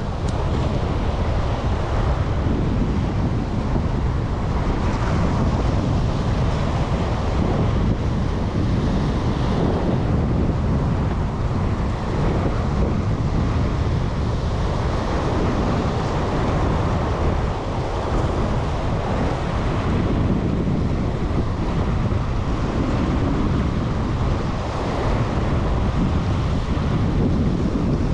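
Wind buffeting the microphone over surf washing at a jetty: a steady rushing rumble, heaviest in the low end, with no distinct events.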